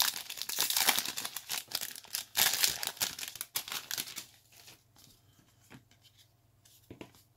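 A 2024 Topps Series 1 baseball card pack's plastic wrapper being torn open and crinkled, a dense crackling for about four seconds. It then fades to faint light handling of the card stack.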